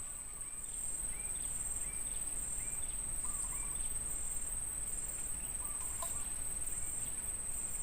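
Steady high-pitched insect trill, with a second pulsing insect call just beneath it repeating about every three-quarters of a second. Faint short rising chirps recur lower down.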